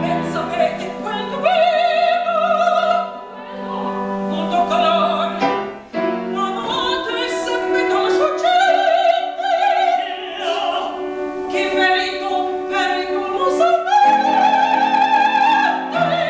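A woman singing opera with wide vibrato, accompanied by piano.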